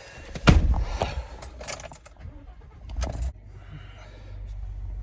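A vehicle door thumps shut and keys rattle, then after a second thump a vehicle engine starts and runs steadily with a low hum.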